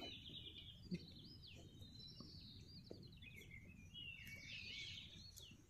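Faint dawn chorus of many small birds chirping and warbling together, with overlapping quick trills and looping calls.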